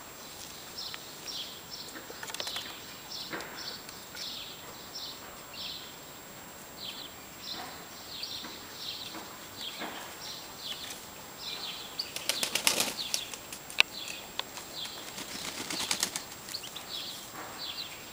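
Tumbler pigeons' wings flapping in two quick flurries of wingbeats, the louder one about two thirds of the way through and another shortly after. Between them a steady series of short high chirps repeats a couple of times a second.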